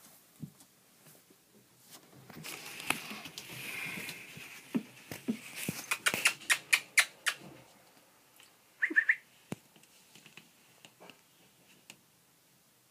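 Five-week-old Pomeranian puppies whining and squeaking in high voices as they play. A quick run of sharp clicks comes in the middle, and there is a short rising squeak a couple of seconds later.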